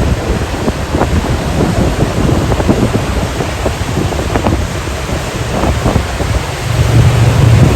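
Gusty wind buffeting the microphone with a heavy low rumble, over ocean waves and swell breaking on the shore. A stronger gust comes near the end.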